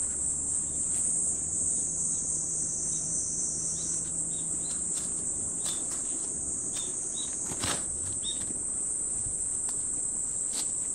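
Steady, high-pitched insect chorus from crickets or similar singing insects, with a few short chirps in the middle and a single sharp click about eight seconds in.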